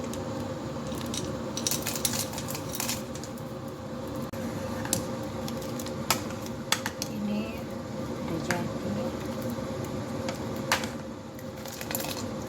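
A spoon clinking and knocking against a cooking pot at irregular intervals, thickest in the first few seconds, as sugar is added and stirred into the boiled pear brew. A steady hum runs underneath.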